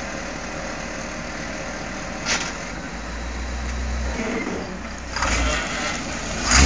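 Rock-crawler pickup's engine running at low revs, its low note swelling louder for about a second around three seconds in as it takes throttle. There is a sharp knock about two seconds in.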